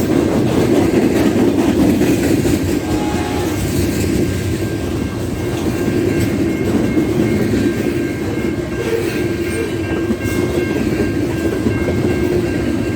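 A train rolling past: a steady rumble of wheels on the rails with clickety-clack.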